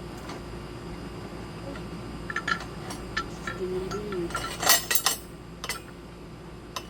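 Light metallic clinks and taps from tire irons being handled against a wheel rim, with a loud cluster of clinks about two-thirds through.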